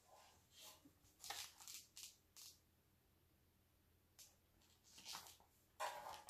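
Faint rustling of a large picture book being handled and its pages turned, in short scattered bursts with quiet gaps, the loudest near the end.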